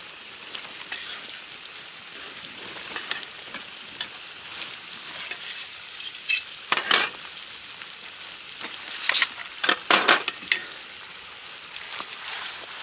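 Onions and garlic frying in oil in a pan with a steady sizzle. A spoon stirs and scrapes against the pan in a few quick clinking bursts about halfway through and again near the end.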